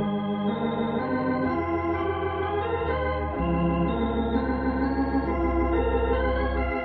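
Organ music playing slow, held chords over a deep bass, the chord changing every second or two: a radio-drama musical bridge between scenes.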